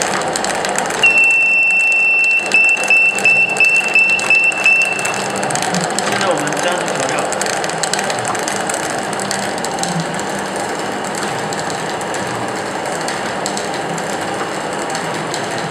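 Automatic stir-fry cooking machine's stirring paddle running with a steady mechanical rattle. About a second in, the machine's buzzer gives one long beep and then a run of about eight short beeps, a prompt to the operator for the next ingredient.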